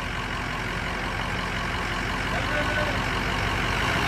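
Ford F-350 pickup truck engine running steadily at low revs, growing slowly louder.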